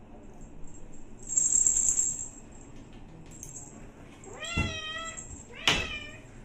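Domestic cat meowing twice in the second half, two drawn-out meows about a second apart, the second louder. Earlier, about a second in, a short hissing noise lasting under a second.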